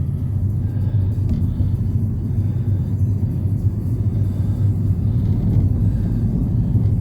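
Steady low engine rumble of heavy construction machinery running, with no distinct clanks or impacts.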